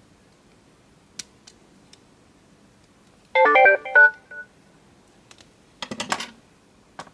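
Sony Rolly SEP-10 music player powering up and playing its short electronic start-up jingle, a quick run of stepping beeps about three seconds in, after a single click; its lights come on as it starts. A short burst of clicking and rattling follows about two seconds later.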